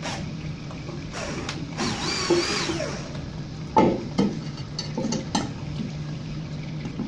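Clicks and knocks from hands and tools working at a washbasin's ceramic pedestal, a few sharp ones near the middle, over a steady low hum.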